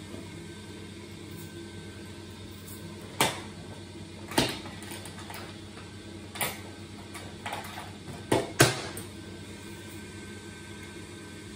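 Oil-fired boiler's pressure-jet burner running with a steady hum. About six sharp knocks and clicks of tools and parts being handled fall between about three and nine seconds in, the loudest near the end of that stretch.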